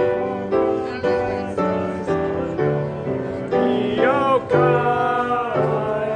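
Piano playing chords with a voice singing along.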